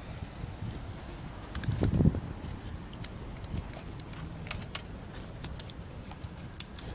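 Handling noise from a hand-held phone camera: a steady low rumble with scattered light clicks, and one dull thump about two seconds in.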